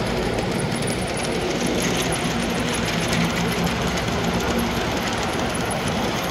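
Model train locomotives and freight cars running around a layout: a steady mechanical hum and rattle of small electric motors and wheels on the rails, with fine ticking throughout.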